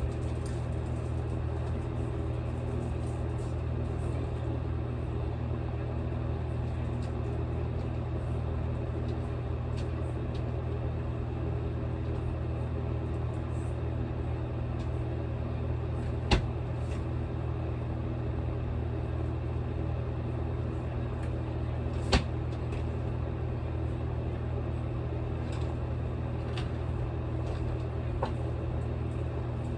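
Air conditioner running with a steady low hum. Two sharp clicks come through, one just past halfway and one about three quarters through.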